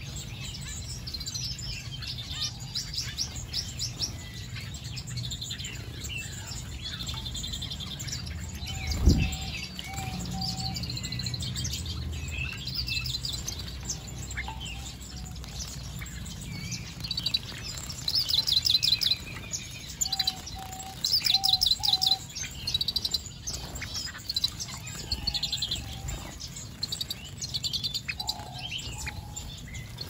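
A mixed flock of aviary finches and waxbills chirping and twittering, with many short high chirps and quick trills that grow busier in the second half, and a few lower short notes repeated in small groups. A single sharp thump about nine seconds in.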